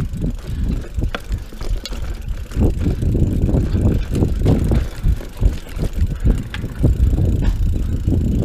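Mountain bike rolling along a dirt singletrack: a steady low rumble of tyres and wind on the microphone, with scattered light ticks.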